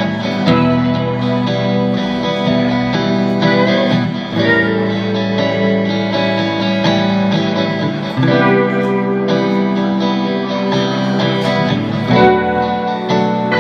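Guitar music: held, ringing chords that change about every four seconds, with no singing.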